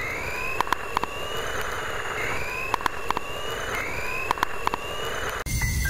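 Electric motor of a radio-controlled car whining up in pitch three times as it is throttled, each climb levelling off, over a steady hiss, with sharp clicks in small clusters. Music cuts in near the end.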